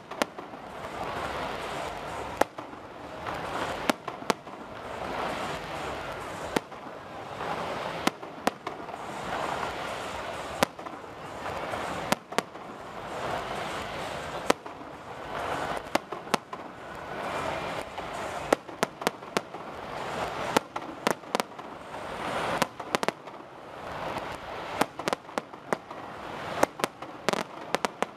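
Aerial firework shells bursting with sharp bangs in a castillo firework display. The bangs are spaced a second or more apart at first, then come in quick clusters through the last third.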